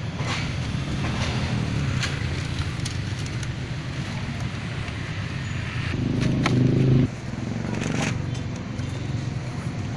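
Steady low hum of a vehicle engine running, swelling for about a second near the middle and then dropping off suddenly. A few scattered clicks and rustles come from the fabric bonnet insulation being pressed into place by hand.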